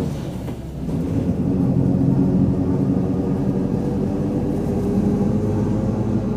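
Mercedes-Benz OF-1722M bus under way, its diesel engine and drivetrain pulling steadily, with the differential growling. The level dips briefly under a second in and then holds steady.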